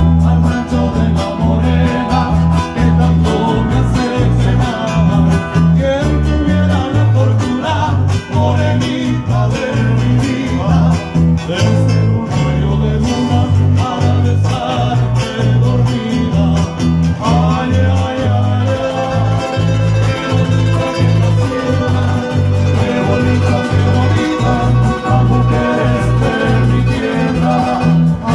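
Live northern Nicaraguan folk music: an acoustic guitar picked and strummed over a keyboard accompaniment with a steady, repeating bass line.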